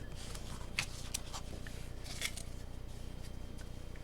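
A few faint clicks and rustles of Pokémon trading cards and booster pack wrapping being handled, over a low steady hum.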